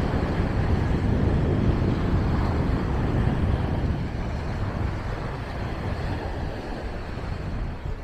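Wind rumbling on the microphone over a steady wash of surf, a little louder in the first half.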